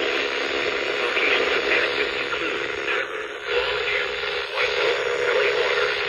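Reecom NOAA weather radio's small speaker playing a NOAA Weather Radio station through steady static, a weak, distant signal that is mostly hiss.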